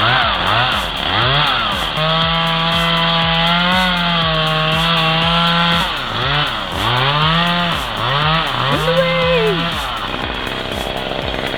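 Two-stroke chainsaw engine revving up and down in quick throttle blips, held at high revs for about four seconds, then blipped again several times.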